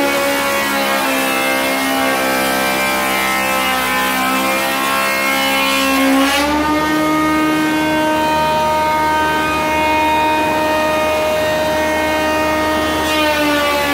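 Stationary spindle moulder running with a steady whine while its cutter machines a 45-degree bevel on a panel's edge. The pitch sits lower under cutting load, rises about six seconds in as the panel comes off the cutter, and sags again near the end as the next pass begins.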